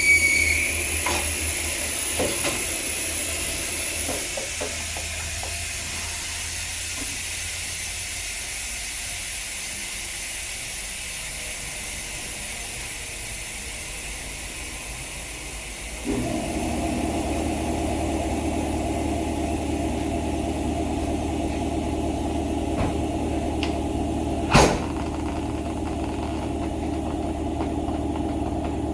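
Air hissing out of a tire through its open valve stem, a high whistle dying away at the start and the hiss slowly fading as the tire deflates. About 16 seconds in, a machine starts running with a steady hum, and a single sharp knock comes near the end.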